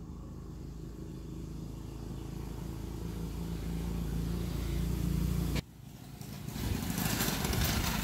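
A vehicle engine drones low and grows louder as it approaches. It cuts off abruptly about five and a half seconds in, and a rushing hiss then swells.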